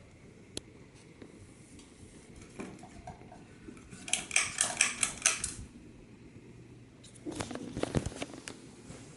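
Coolfan Huracan ceiling fan running with a faint steady hum. It is broken twice by bursts of rapid metallic clinking and rattling, the first about four seconds in and the louder of the two, the second shorter and lower about seven seconds in.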